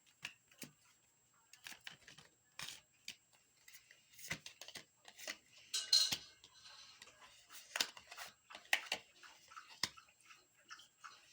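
Tarot cards being shuffled and handled: faint, irregular light snaps and rustles, with a louder burst of rustling about six seconds in.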